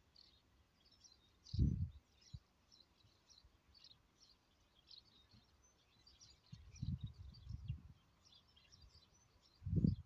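Small birds chirping and twittering on and off, with short irregular low buffeting on the microphone about a second and a half in, again around seven seconds, and louder at the very end.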